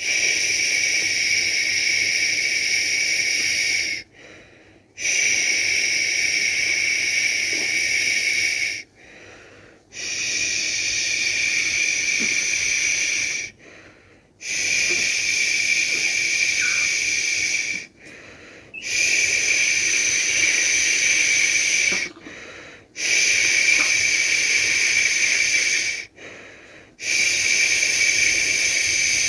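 A person shushing, a long 'shhh' held about four seconds at a time and repeated seven times with short pauses for breath between: the steady shush used to soothe a baby to sleep.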